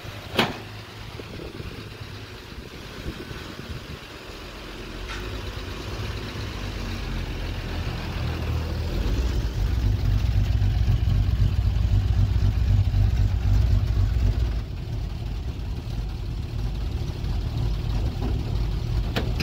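Vintage Chevrolet pickup's engine running at idle, a low steady rumble that grows louder over the first half and eases slightly about two-thirds of the way through. A sharp click sounds just at the start.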